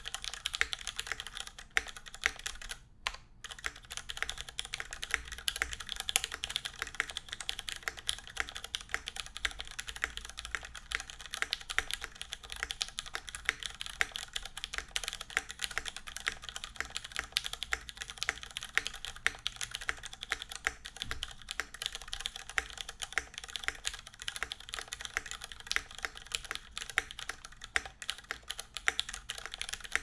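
Continuous fast typing on a KMAC 1 tenkeyless mechanical keyboard with unlubed Cherry MX Red linear switches in a full aluminium plate and GMK keycaps: a dense, unbroken run of key clacks. The run pauses briefly about three seconds in.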